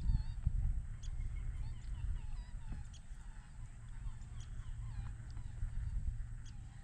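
Birds chirping and calling in the background over a steady low rumble.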